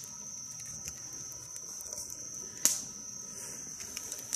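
Crickets chirping in a steady high trill, with a few faint ticks and one sharp snap about two and a half seconds in.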